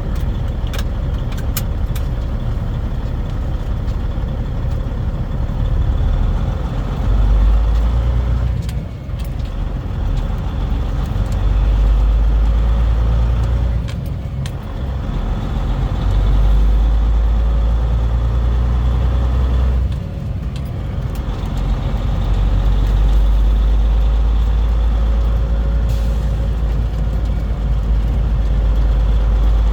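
Semi-truck engine running, a steady low drone that dips briefly three times, about 9, 14 and 20 seconds in.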